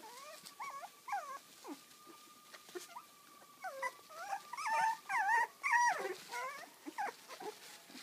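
Labradoodle puppies whining and squealing in short, high, wavering cries, crowding together and loudest about four to six seconds in.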